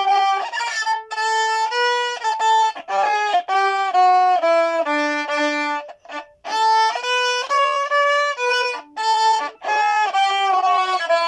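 Violin played with the bow: a simple tune of separate, mostly short notes, with a brief break about six seconds in.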